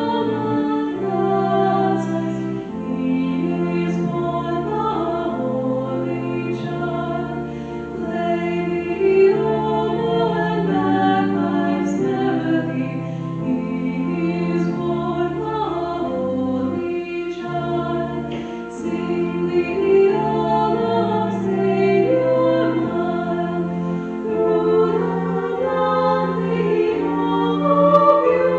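Church choir singing a hymn in sustained chords, the harmony changing every second or two.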